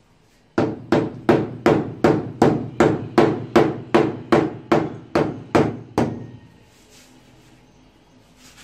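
Hammer tapping a stainless-steel kitchen sink down to level it: about seventeen quick, even blows, roughly three a second, each with a short metallic ring, stopping about six seconds in.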